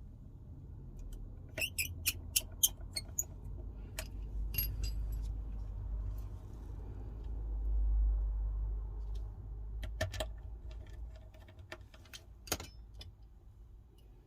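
Small sharp clicks and taps of tools and metal parts being handled while a bracket is fitted inside an iPhone 12, in a quick run of clicks early on, then a few single ones, over a low rumble that swells and fades in the middle.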